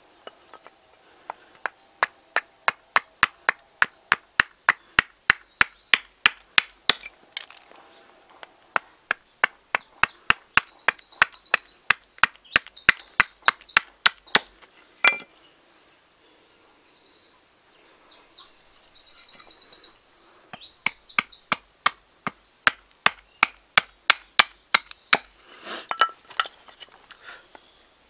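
Carving axe chopping a seasoned alder spoon blank on a chopping block: long runs of quick, light, sharp strikes, about two to three a second, with a lull in the middle broken by one heavier blow.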